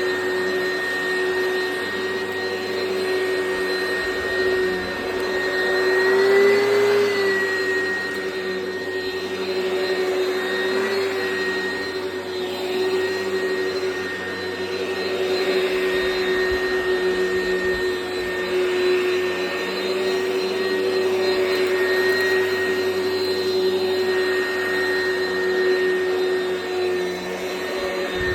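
Oreck XL Commercial upright vacuum cleaner running steadily while vacuuming carpet: a constant motor whine over airflow hiss. Its pitch rises and its level swells briefly about six seconds in.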